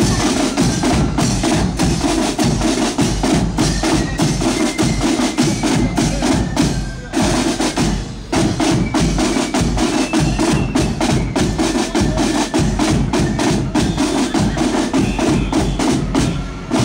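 Marching band snare drums and bass drum playing a fast, steady beat, with a short break about seven seconds in.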